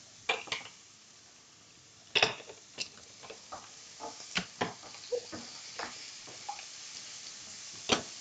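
Onions frying in a pan with a steady faint sizzle, under scattered sharp clicks and knocks of metal as a can of crushed tomatoes is opened.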